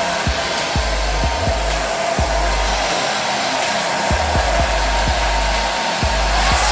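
Remington Pro Wet2Style ionic hair dryer with its detangler comb attachment, running steadily on type 4 hair: a continuous blowing rush with a steady motor hum. Low gusts buffet the microphone now and then.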